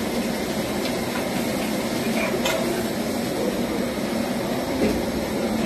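Live trout being netted out of a water tank and dropped into a wicker basket on a scale: a few light knocks and handling sounds over a steady hiss.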